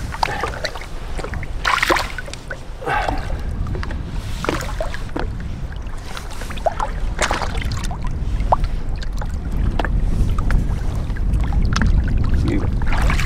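Lake water splashing and lapping at the side of a boat as a muskellunge is held in the water and released. A low wind rumble on the microphone runs under it and grows louder toward the end.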